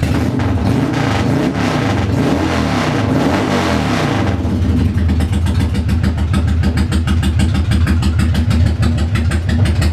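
Yamaha motorcycle engine running again after a starter clutch repair: revved up and down a few times in the first few seconds, then settling to a steady idle.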